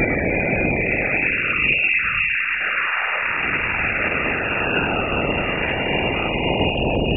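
Radio emissions from Jupiter's moon Io, recorded by NASA's Juno spacecraft's Waves instrument and shifted into audible sound: a steady hiss crossed by sweeping tones that fall in pitch.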